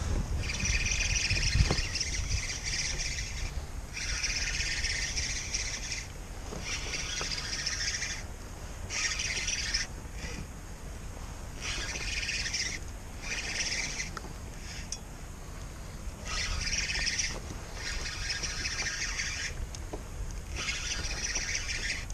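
Fishing reel drag giving line in repeated high-pitched buzzing bursts of a second or two, with short pauses between: a hooked fish, a large dentex, pulling line off against the drag. A steady low rumble of wind and water lies underneath.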